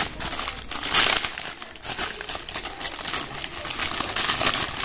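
A clear plastic bag crinkling and rustling as hands work a warranty card and paper inserts out of it. The crackle is irregular and continuous, loudest about a second in.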